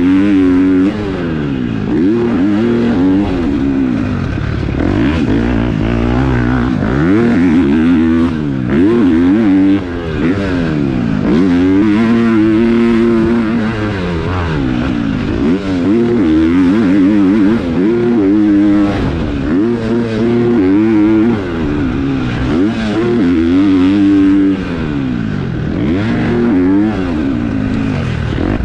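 KTM four-stroke motocross bike with a new aftermarket exhaust, ridden hard on a track: the engine revs up and drops back over and over as the rider goes through the gears and rolls off for corners.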